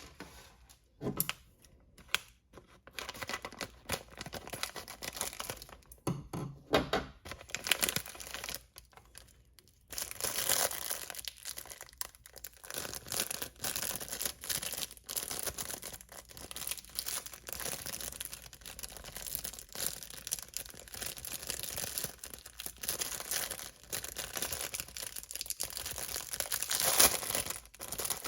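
Packaging being torn open and crinkled by hand: a few separate rips and rustles at first, then, from about a third of the way in, steady crinkling and tearing.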